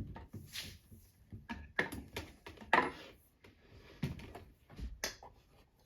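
Scattered light clicks and knocks from handling tools and small parts, with no drill motor running.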